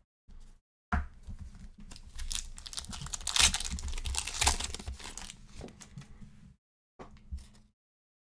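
A foil trading-card pack wrapper being torn open and crinkled by hand. The crackling is loudest around the middle, and a few short, softer rustles follow near the end as the cards are slid out.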